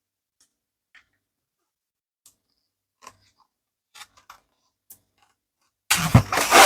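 Mini rubber balloons and their wrapping being handled: a few faint small clicks and rustles, then about six seconds in a loud crinkling, rubbing rustle with several peaks, lasting about a second.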